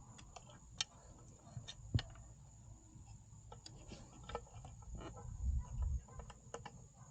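Scattered faint clicks and small taps from hands and small tools working on a motorcycle's kickstand safety switch, irregular, with a sharper click about two seconds in.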